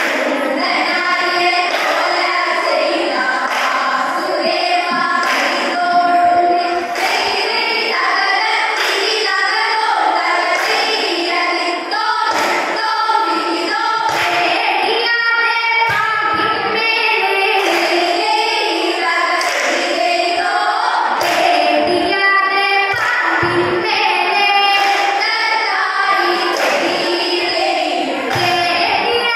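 A women's group singing a vanjippattu, the Kerala boat song, through a PA: a lead singer and chorus, with a steady clapped beat running under the singing.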